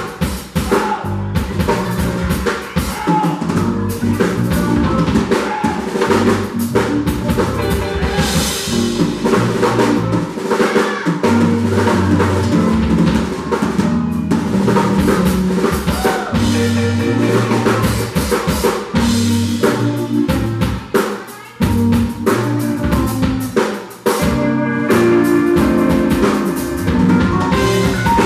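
Live band playing, with the drum kit to the fore: snare, rimshots and kick drum over a bass-guitar line. Trumpets come in near the end.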